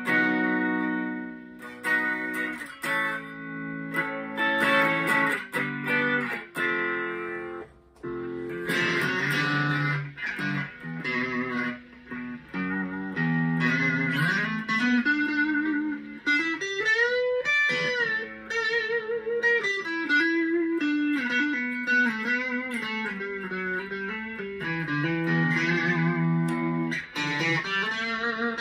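Slick SL50 Telecaster-style electric guitar played through an amplifier: strummed and picked chords at first, then a single-note lead line with string bends and vibrato in the second half.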